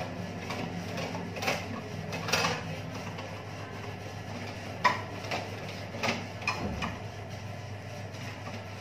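Steady low hum with a few light knocks and rustles scattered through, the sharpest about five seconds in.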